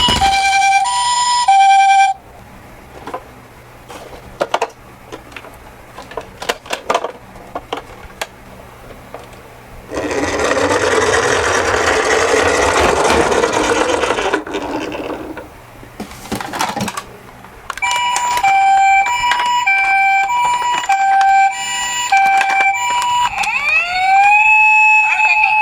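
Electronic two-tone hi-lo 'pee-po' siren of a toy ambulance, cutting off about two seconds in. Scattered clicks follow, then about five seconds of rattling rolling noise as toy minicars run down a slope. The hi-lo siren starts again about 18 seconds in, with a rising wail-tone siren joining near the end.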